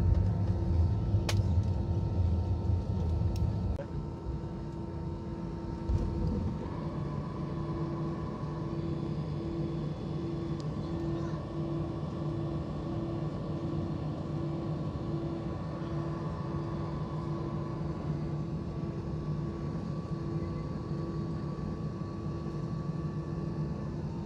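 Airbus A320 heard from inside the cabin as it slows after touchdown: a loud low rumble that drops away about four seconds in, leaving a steadier engine hum with a low pulsing tone as the jet taxis.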